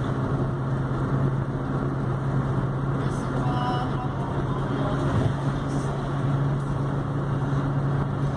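Car travelling at highway speed, heard from inside the cabin: a steady low drone of engine and tyre noise.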